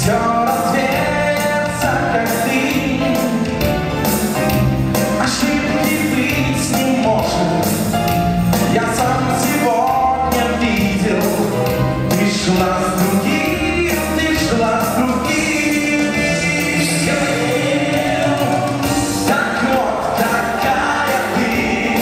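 Live band performing a song: male lead vocals with group vocal harmonies over electric guitars, bass and keyboard, with a steady beat, amplified through the hall's PA.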